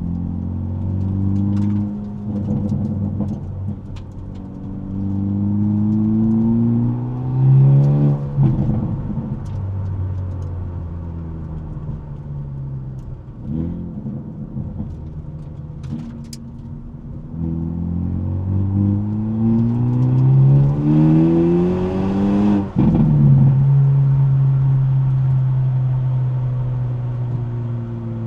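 Hyundai Elantra N's turbocharged four-cylinder engine and exhaust pulling hard twice, heard from the trunk. Each time the note climbs steadily and then drops suddenly at an upshift, once about eight seconds in and again near twenty-three seconds. After the second shift it settles into a steady drone, and a few sharp exhaust cracks come through along the way.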